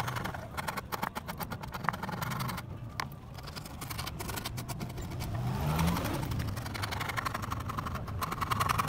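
Hand rasp worked quickly back and forth over the willow of a cricket bat's toe, a fast scraping rhythm of short strokes. A motor vehicle passes about halfway through.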